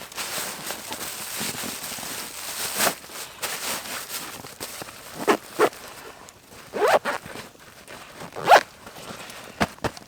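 A steady rustle, then four short sharp scrapes, the last the loudest.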